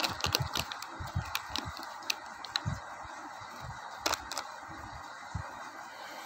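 Crinkling of a foil-lined plastic biscuit wrapper as the opened packet is handled: a run of sharp crackles over the first few seconds, with a louder one about four seconds in, over a steady hiss.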